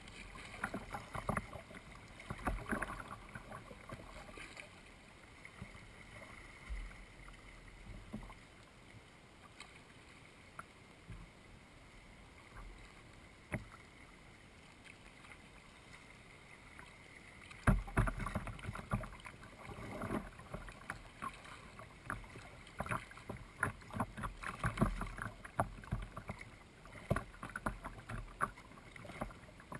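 Kayak paddling: irregular splashes and sharp knocks of the paddle. They are sparse through the first half, then come much more often from a little past the middle.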